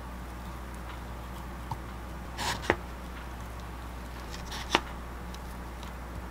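Small plastic spoon scooping thick Greek yogurt from its tub and pressing it into a hollowed, peeled Korean melon: soft wet squishes and a couple of sharp clicks of the spoon about two seconds apart, over a steady low hum.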